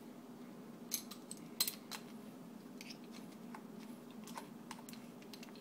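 Light clicks and taps of a lawn mower carburetor's metal parts being handled as the float bowl is fitted back on and secured, a few sharp ones about a second in, the loudest about a second and a half in, then scattered faint ticks.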